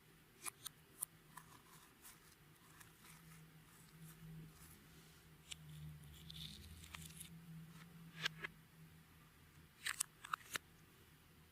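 Faint, sharp, sticky clicks and crackles of clear slime being pressed, stretched and mixed, coming in scattered clusters, the loudest a little past halfway and again near the end.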